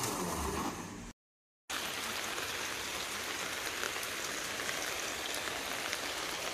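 An electric blender grinding kale winds down in the first second, its motor falling in pitch as it stops. After a short silent break, a steady, even rain-like hiss runs on.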